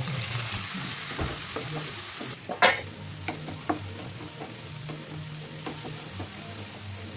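Sardine roast sizzling steadily in hot oil in a pan, with one loud sharp clink of a utensil against the pan about two and a half seconds in and a few lighter taps after it.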